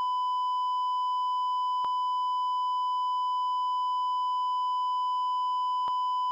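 Patient monitor's continuous flatline alarm: a single steady, unbroken high beep with no heartbeat pulses, the sign that no cardiac rhythm is being detected. Two faint clicks sound over it, about two seconds in and near the end.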